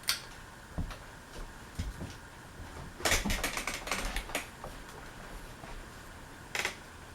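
Harbor Breeze Armory ceiling fan switched to medium, with sharp irregular clicks: a rattling run of them about three seconds in and a single one near the end, over a faint steady hum.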